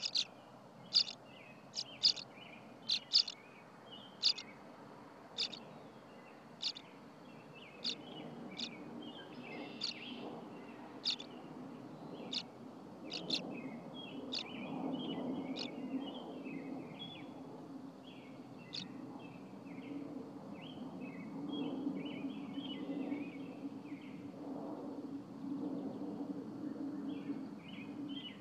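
Tree swallows calling: sharp, high chirps about once a second that thin out after the first dozen seconds, then softer twittering chatter. A low steady hum comes up about a third of the way in.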